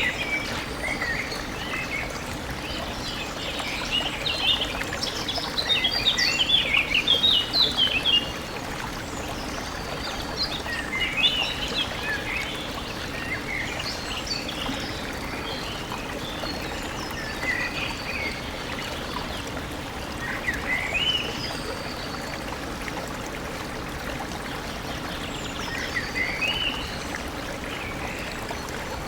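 Birds chirping and trilling in bursts, busiest and loudest in the first eight seconds, then in short spells every few seconds, over the steady sound of a flowing stream.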